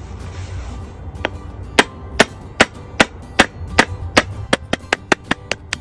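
Hammer tapping a centre punch against the base of a towel-covered ceramic teacup, punching a drainage hole for a succulent pot. The sharp metal taps begin about a second in at two or three a second and quicken to about five a second near the end.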